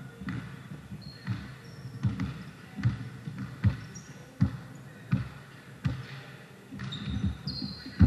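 A basketball being dribbled on a hard court, a bounce about every three-quarters of a second, with a few short high sneaker squeaks.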